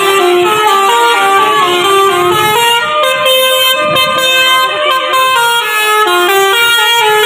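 A bus's telolet basuri musical horn playing a tune: loud held notes, one after another, stepping up and down in pitch without a break.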